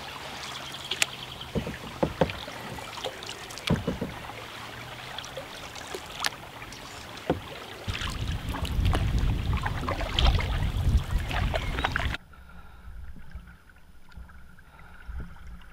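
Open canoe being paddled on a calm river: paddle blades dipping and dripping, with sharp knocks of the wooden paddle against the canoe. A louder low rumble comes in for a few seconds past the middle, and the sound drops quieter near the end.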